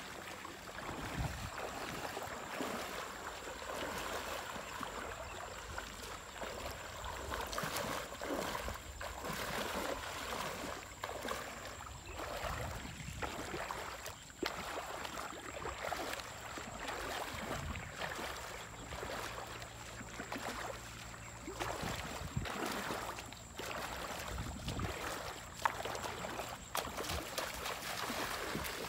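Shallow river water sloshing and splashing around wading legs, with irregular splashes over a continuous rush of water.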